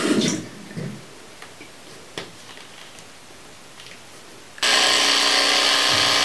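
Electric toothbrush switched on about four and a half seconds in, then a steady, loud motor buzz as it brushes teeth. Before that there is a short noise at the start and then only quiet room tone.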